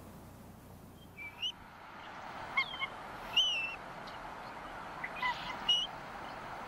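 Bald eagles at the nest giving a string of short, high, thin chirping calls, several dropping in pitch, the loudest about three and a half seconds in, over a faint steady hiss.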